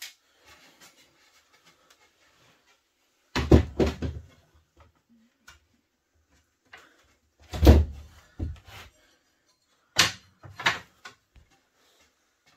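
Sharp knocks and thuds in three short clusters, a few seconds apart, the middle one loudest: a cordless nailer firing into the corner joint of a pine window-jamb frame, and the boards being knocked and shifted.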